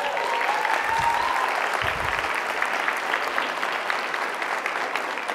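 Audience applauding, with a voice calling out a cheer over the clapping in the first second or so.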